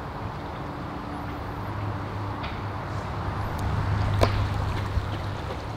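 Outdoor ambience: a steady low rumble that swells for a second or two past the middle, with a few faint clicks and knocks and some faint high chirps.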